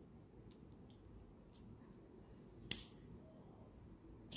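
Steel precision screwdriver bit clicking in and out of the screwdriver handle's bit socket: a few faint ticks, then one sharp click about two and a half seconds in and another near the end.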